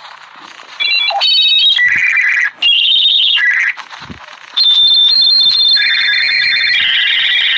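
Dial-up modem handshake: faint line hiss, then about a second in loud bursts of high beeping tones and screeching hiss with short breaks between them, settling from about halfway into a long steady high tone over a harsh hissing band as the modems negotiate the connection.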